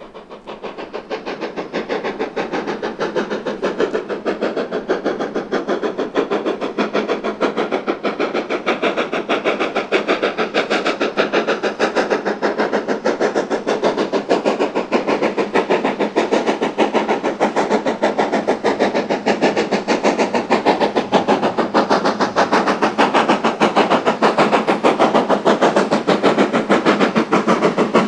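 Steam locomotive working a train, a fast, even pulsing beat that builds over the first couple of seconds and then holds loud and steady.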